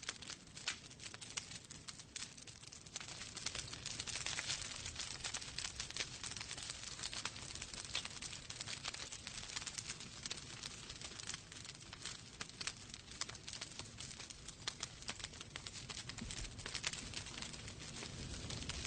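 Wood fire burning in a fireplace, crackling with many irregular sharp pops and snaps over a soft hiss.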